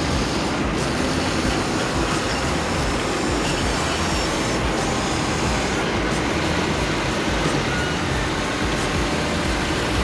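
Steady rush of breaking surf and wind on the shore, with the faint whine of a remote-control toy excavator's electric motors as it swings and digs sand.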